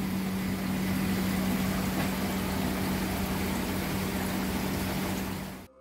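Steady electrical hum with an even rushing noise from running pump machinery, cutting off suddenly near the end.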